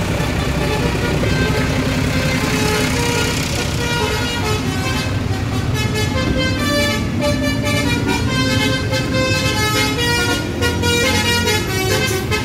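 A bus's telolet basuri musical horn plays a quick run of changing notes, starting about four seconds in, over the steady low running of the bus engine.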